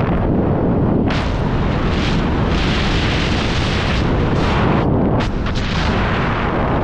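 Wind rushing over a helmet-mounted camera's microphone in skydiving freefall: a loud, continuous buffeting roar.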